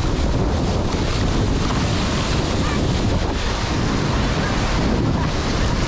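Steady rush of water with splashing close to the camera as a person swims in a river pool, with wind rumbling on the microphone.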